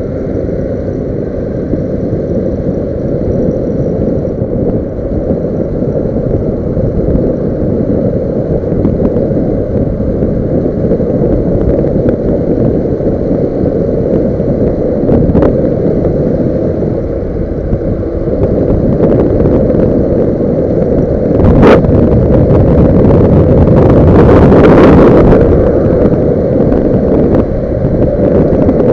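Wind buffeting the microphone on a moving motorcycle, a loud steady rumble mixed with engine and road noise. There is a sharp knock about three quarters of the way through, then a louder rushing swell for a few seconds.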